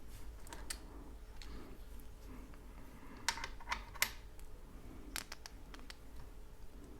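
Faint, scattered clicks and light taps of small hardware parts being handled, a few sharper ones between about three and four seconds in and again past five seconds.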